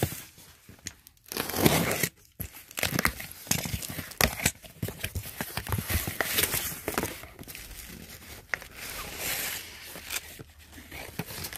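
Cardboard carton being opened by hand: packing tape slit with a box cutter and the cardboard flaps pulled back, with tissue paper packing rustling and crinkling inside. The sound is irregular scraping, tearing and crinkling.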